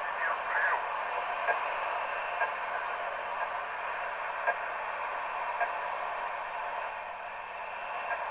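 CB radio receiver on 27.190 MHz giving a steady hiss of band noise, with faint, garbled voices of distant stations coming through the static during a skip opening.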